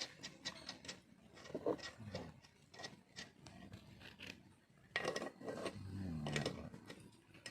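Scattered light metallic clicks, clinks and scrapes of metal parts being handled, with a brief low voice about six seconds in.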